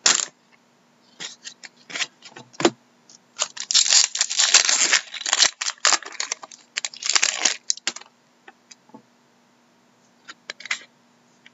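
A hockey card pack's foil wrapper being torn open and crinkled: a dense stretch of crackling and tearing in the middle, with scattered clicks of cards being handled before and after it.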